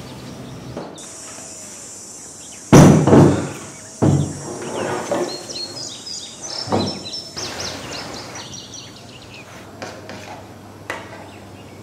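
Several heavy knocks as a marble slab and other things are set down on a wooden table, the loudest about three seconds in. A steady high insect drone and a few short bird chirps run under them.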